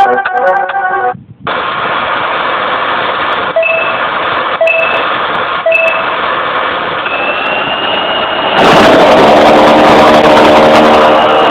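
F-16 fighter jet's engine running: a steady rushing noise with a high whine, getting louder and fuller from about nine seconds in.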